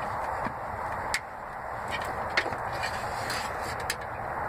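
A few short clicks as an aircraft engine's oil filler cap and dipstick are twisted loose and drawn out, over a steady background hiss.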